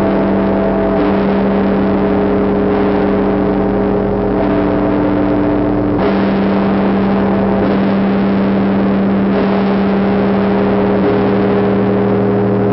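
The Tsar Bell of the Trinity-Sergius Lavra bell tower, a 72-ton church bell, tolling: deep, overlapping ringing tones that hang on without dying away. Fresh strokes renew the ring every couple of seconds, the clearest about halfway through.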